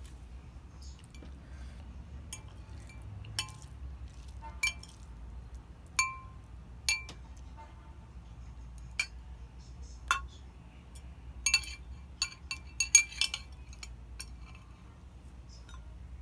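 Utensils clinking against dishes: a dozen or so sharp, ringing clinks at irregular intervals, with a quick flurry of them about three-quarters of the way through.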